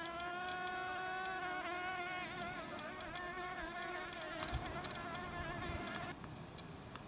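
Green-eyed flower bee buzzing in flight, a steady hum whose pitch wavers slightly as it hovers, cutting off suddenly about six seconds in.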